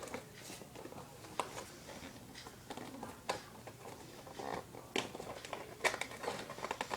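Cardboard headset box being opened by hand: scattered light clicks, taps and rustles of the packaging, about five sharper clicks spread through.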